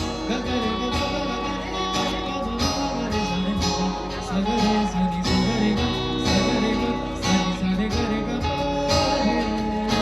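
Music: an acoustic guitar strummed in a steady rhythm, with a voice singing along.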